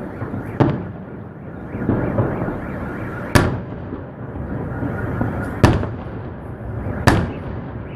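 Festive salute fireworks: four sharp shell bursts a second and a half to three seconds apart, with a steady rumble between them.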